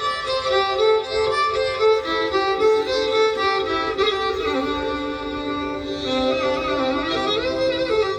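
Instrumental music: a sustained string melody that slides between notes, with a long gliding ornament a little past the middle.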